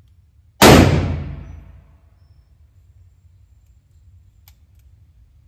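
A single shot from a Ruger .44 Magnum revolver about half a second in, a sharp crack that echoes and dies away over about a second in the indoor range. A couple of faint clicks follow a few seconds later.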